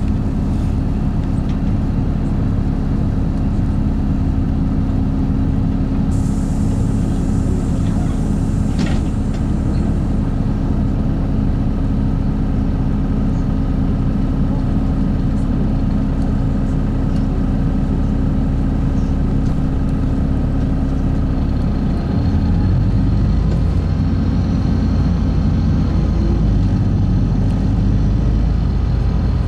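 LiAZ-5292 city bus heard from inside, its engine and running gear making a steady low drone. A brief high hiss comes about six seconds in, and about 22 seconds in the engine drone grows louder and deeper.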